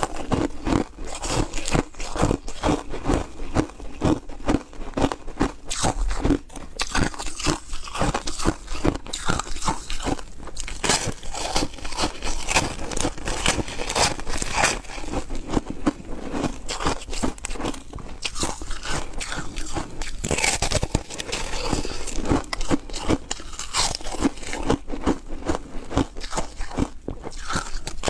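Close-miked biting and chewing of soft foam ice, a steady run of crisp crunches several times a second.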